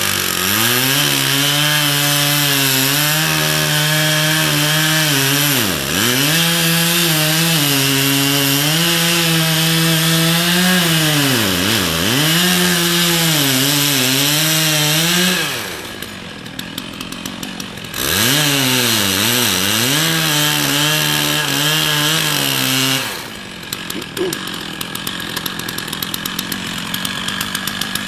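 Two-stroke chainsaw cutting into the base of an oak trunk at full throttle, its pitch dipping briefly twice mid-cut. It drops to idle for a couple of seconds, revs back up for a few more seconds of cutting, then settles to idle near the end.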